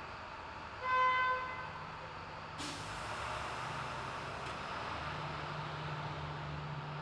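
Vehicle noise: a short horn toot about a second in, then a steady rumbling noise with a low hum that starts suddenly about two and a half seconds in.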